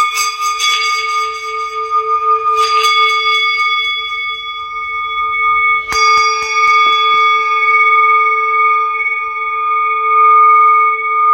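Singing bowls ringing in long, steady overlapping tones, struck afresh near the start, about three seconds in and again about six seconds in, each strike followed by a long ring.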